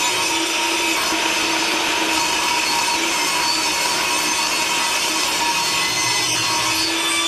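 Portable jobsite table saw ripping a full sheet of plywood, the blade cutting steadily through the wood with the motor holding an even pitch under load.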